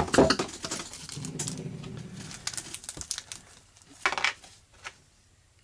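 Small steel dental picks clinking as they are set down on a workbench, then rustling and scattered light metal clicks as small gun parts are handled, with a sharper clink about four seconds in.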